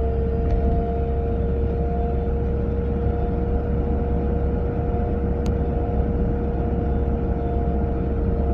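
Volvo 940 driving at a steady speed: low road rumble with a steady, held whine from the passenger side. The noise is unidentified; the owner hears it at about 30 to 40 mph. A single faint click about five and a half seconds in.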